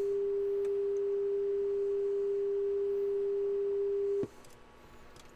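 A steady 400 Hz test tone from an audio generator, injected at a transistor's base with a probe and played clean through the Marantz 2500 receiver's output, showing the transistor stage is amplifying. It cuts off with a click about four seconds in.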